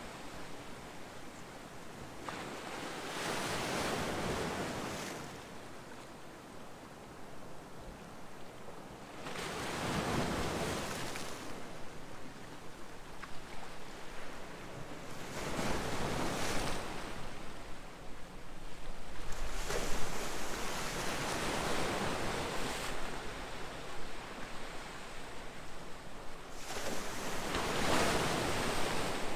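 Ocean surf: waves breaking on the shore one after another, each a rushing swell that builds and fades, about five in the stretch, some six seconds apart.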